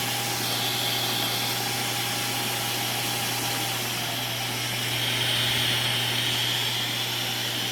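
Shark Detect Pro auto-empty base running its suction motor steadily, emptying the docked vacuum's dustbin. A steady hum carries a faint high whistle that grows a little louder past the middle.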